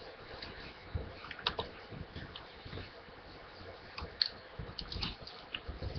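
Irregular, faint clicks of a computer keyboard and mouse being used, with a few soft low thumps.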